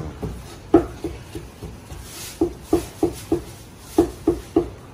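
Cleaver chopping braised pork on a white plastic cutting board: about ten sharp knocks in short runs of two to four, roughly three a second.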